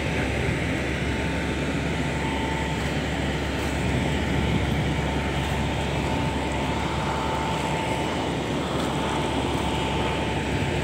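Mobile boat hoist (travel lift) holding a fishing boat in its slings, its engine running steadily: a low drone with a faint steady whine above it.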